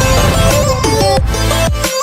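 Background electronic music with a steady beat and a melody line, cutting out briefly at the very end.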